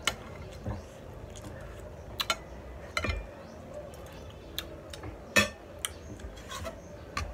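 Cutlery tapping and clicking against a plate while eating: about a dozen short, irregular clicks spread over several seconds.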